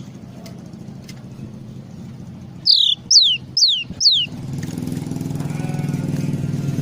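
Cinereous tit (gelatik batu) singing: four loud whistled notes, each sliding down in pitch, come quickly one after another about two and a half seconds in. Under them runs a steady low engine-like hum that grows louder in the second half.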